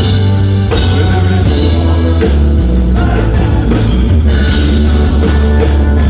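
Live country band playing loud: drum kit, electric guitar and bass in an instrumental stretch between sung lines.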